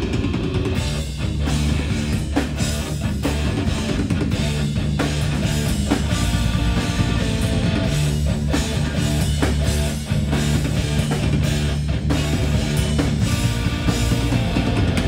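Live rock band playing loud: electric guitar, bass and drum kit, with steady drum hits over a heavy low end.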